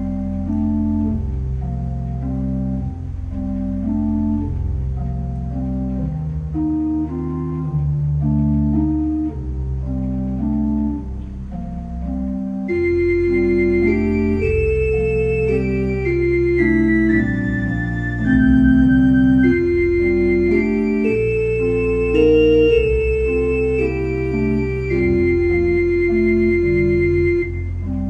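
Church organ played with both hands on a multi-manual console: held chords and moving lines over sustained bass notes. About halfway through it gets fuller and brighter, with more high notes added.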